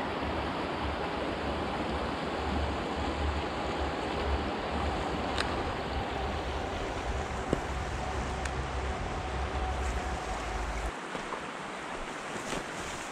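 Trout stream rushing steadily over rocky riffles. A low rumble beneath it drops out about two seconds before the end.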